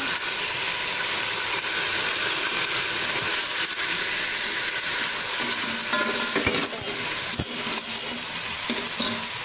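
Sliced onions and whole spices sizzling and bubbling in hot oil in a metal pot, just after a splash of water was added to keep the onions from burning. A metal slotted spoon stirs through it, knocking against the pot a few times about two-thirds of the way through.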